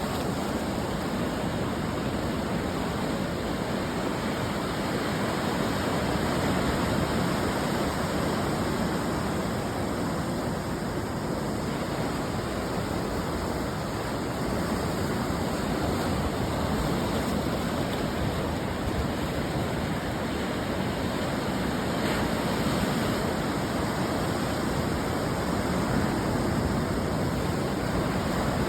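Ocean surf breaking on a beach: a steady wash of waves that swells and eases slightly in level, with no single crash standing out.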